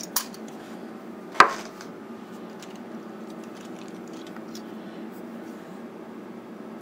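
Stacked silver onza coins clicking as they slide out of a plastic coin tube into a hand, with one sharp clink about a second and a half in and a few lighter clicks, over a steady low hum.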